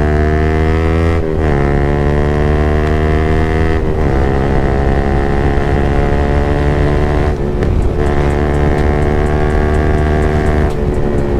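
Yamaha MT-15's single-cylinder engine through an aftermarket Akrapovic exhaust, accelerating hard. The pitch climbs steadily and drops at each upshift: about a second in, near four seconds, around seven and a half, and near the end.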